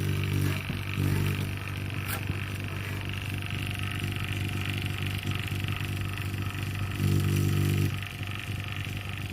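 Refrigeration vacuum pump running steadily with a low hum, evacuating a small R134a chiller's refrigerant circuit after a compressor replacement. It swells briefly a few times, and there is a single sharp click about two seconds in.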